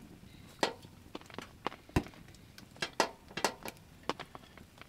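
Firewood burning in a small tent wood stove, crackling with irregular sharp pops and snaps, the loudest about two and three seconds in.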